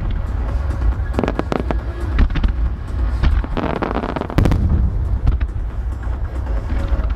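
Fireworks display of aerial shells and ground fountains firing: a steady deep rumble under repeated sharp cracks, a dense run of crackling about three and a half seconds in, then a heavy boom.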